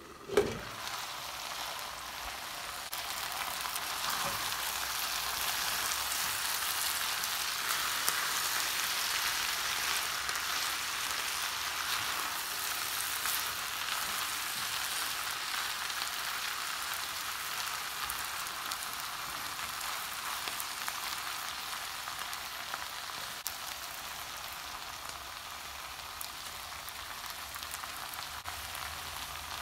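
French beans, potatoes and onions sizzling in hot oil in an open pan, a steady frying hiss that grows louder over the first few seconds as the lid comes off. A single sharp knock about half a second in.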